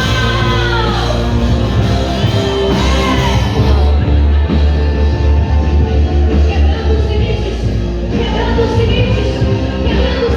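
Live worship music: a band with a heavy, steady bass and held chords, with voices singing long, gliding notes over it.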